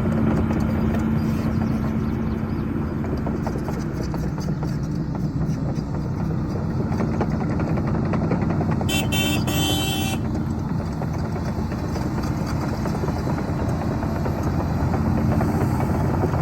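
Heavy diesel earthmoving machinery running steadily. About nine seconds in, a brief two-part high-pitched sound cuts through for about a second.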